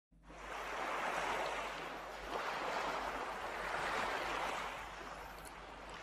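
Sea waves washing in, a rushing water sound that swells and eases about three times and fades toward the end.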